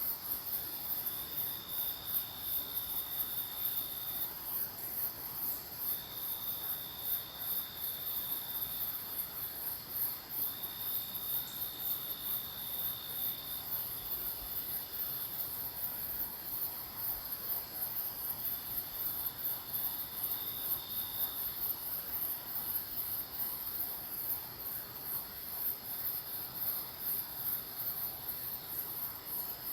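Night insect chorus: crickets singing in a fast, even pulse, with another insect's steady trill coming in stretches of two to three seconds, several times over.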